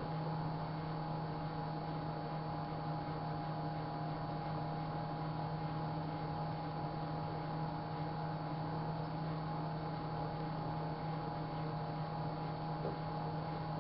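Microwave oven running: a steady hum with a fainter fixed higher tone above it.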